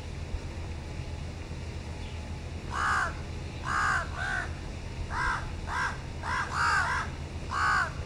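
House crow cawing: about nine short caws starting around three seconds in, several coming in quick pairs.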